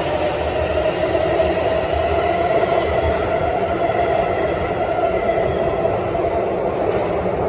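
Electric train accelerating out of an underground station platform: a steady motor whine over the rumble and rattle of wheels on rails.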